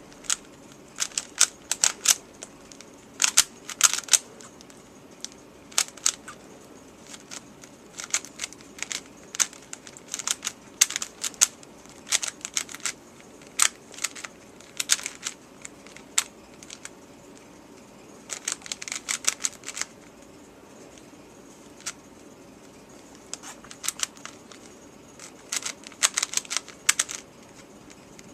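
3x3 puzzle cube layers being turned by hand during a speed solve: quick runs of plastic clicking and clacking, broken by short pauses between sequences of turns.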